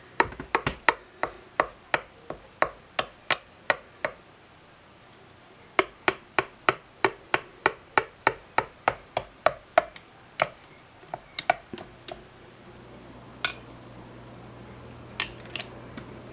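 Plastic debubbler stick tapping and clicking against the inside of glass canning jars of thick barbecue sauce, about three sharp clicks a second in two runs with a short pause between, then a few scattered taps. It is working trapped air bubbles out of the jars before water-bath canning.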